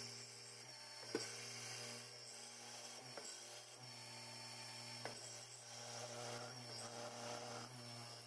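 Milling machine's spindle motor running steadily while a twist drill bores a 6.8 mm tapping hole for an 8 mm thread through a billet aluminium block, with a few faint sharp clicks.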